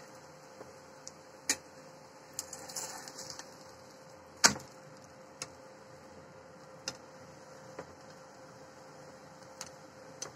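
Nylon spatula knocking and scraping against a frying pan as an aloo paratha is pressed and turned over: scattered light clicks, a short scraping rustle, and one loud knock about halfway through, over a steady low hum.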